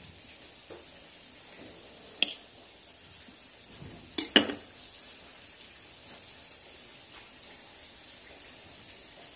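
A table knife clinking and scraping against a small ceramic plate as cheese is scooped off it: a few sharp clinks, the loudest about two and four seconds in, over a faint steady hiss.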